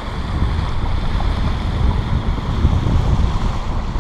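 Wind buffeting the microphone aboard a sailboat under way, as a low, uneven rumble that grows stronger in gusts partway through, over a steady wash of water along the hull.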